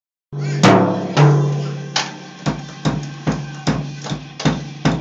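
Acoustic drum kit struck with drumsticks: two loud hits with a long ringing decay in the first second or so, then a steady beat of about two or three strikes a second, over a steady low hum.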